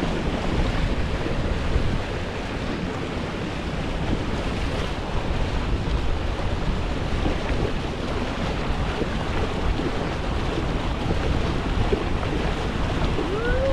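Wind buffeting the microphone and water rushing past the hulls of a Hobie Getaway beach catamaran under sail, a steady, even rush with no pauses.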